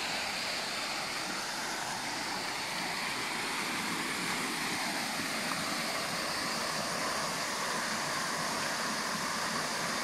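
Steady rush of running water from the stream and waterfall beside the trail.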